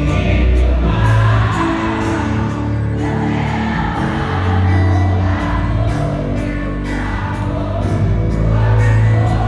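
Live music with singing played loud through a large stadium sound system, with a heavy bass line and a steady beat.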